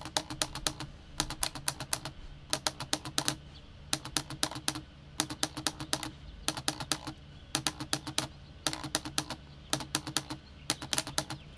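A 24-volt irrigation valve solenoid's plunger clicking as the station outputs of an Irritrol MC Plus controller fire it. The clicks come in rapid groups of five or six, about every second and a half, over a low electrical hum.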